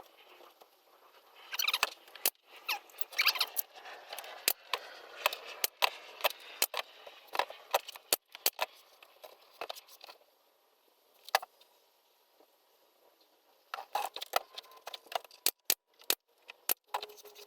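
Irregular sharp clicks, taps and short scratchy scrapes of small objects being handled, with a near-silent pause around the middle.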